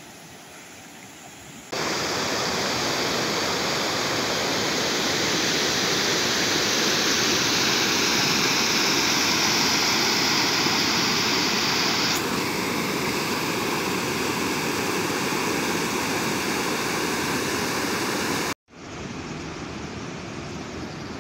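A rain-swollen river in flood, its brown water rushing over rocks in foaming rapids: a steady, loud rush of water. It jumps up about two seconds in, drops out for a moment near the end, and comes back quieter.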